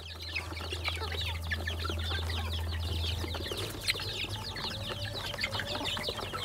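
A flock of young chickens and chicks peeping and clucking as they crowd a feeder, a dense run of many short, high, falling peeps overlapping one another. A steady low hum runs underneath.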